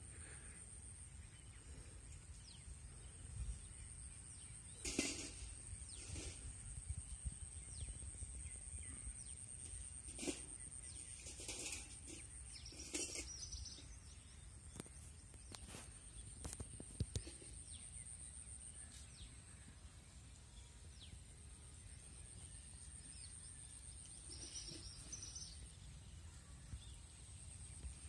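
Quiet rural outdoor ambience: a steady high-pitched tone runs throughout, with scattered short bird chirps and a low rumble underneath.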